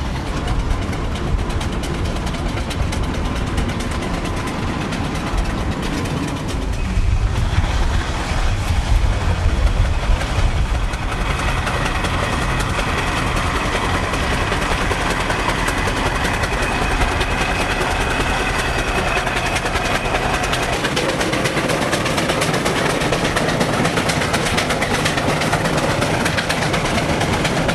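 Steam traction engines running as they drive past towing trailers: steady mechanical running and wheel noise. A heavier low rumble in the first part eases off about a third of the way through.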